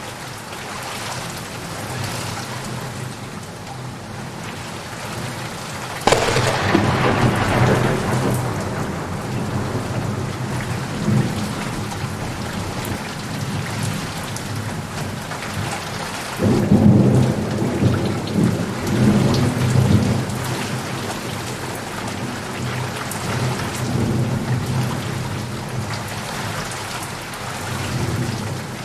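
Steady heavy rain with two claps of thunder: one breaks sharply about six seconds in, and a second, deeper rumble rolls in past the middle and lasts several seconds.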